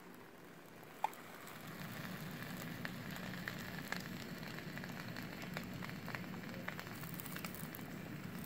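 The waffle maker's lid closes with a click about a second in, then a ham and cheese sandwich sizzles steadily on the hot plates, with small crackles through the hiss.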